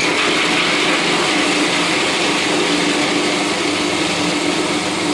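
Electric blender running steadily, blitzing macadamia nuts, nutritional yeast, lemon juice and a little water into a crumbly nut cheese: an even whirring rush over a constant motor hum.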